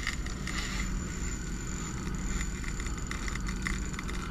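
Fishing reel drag giving line in quick irregular clicks as a hooked sturgeon runs, over a steady low hum.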